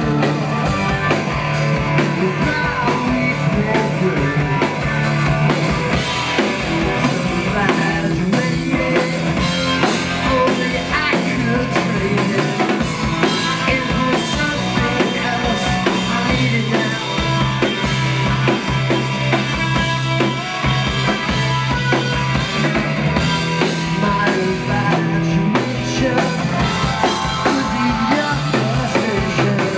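Live rock band playing: electric guitar, bass guitar and drum kit, with a man singing lead.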